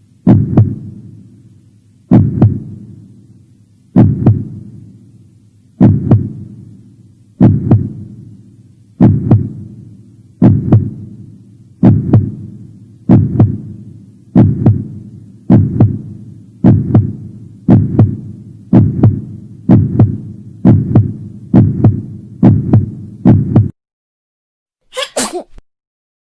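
A deep booming thud sound effect struck over and over, each hit dying away slowly, the hits speeding up from about one every two seconds to more than one a second before stopping abruptly. A brief short sound follows about a second later.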